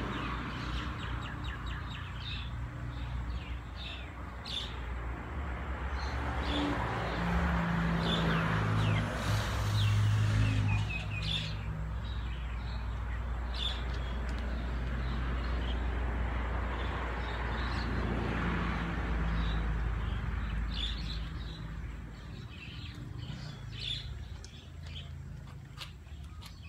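Small birds chirping in short scattered calls over a low steady rumble that swells about a third of the way in and again past the middle.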